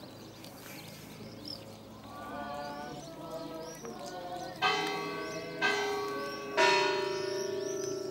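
Church bell struck three times about a second apart, starting a little past halfway, each stroke ringing on; the last is the loudest and keeps humming. Birds chirp high in the background.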